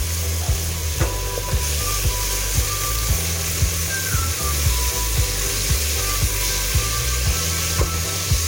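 Garlic sizzling in hot oil in a pot, with background music that has a steady beat running under it.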